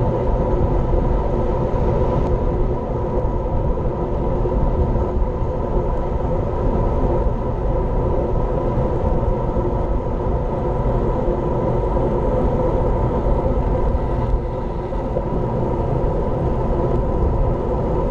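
Steady wind rumble on an action camera's microphone carried on a road bike at speed, mixed with road noise from the tyres on asphalt; a low, even rush that barely changes.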